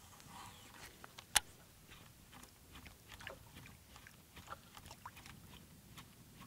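Faint, scattered clicks and ticks from a rod and reel being worked as a lure is retrieved, with one sharp click about a second and a half in.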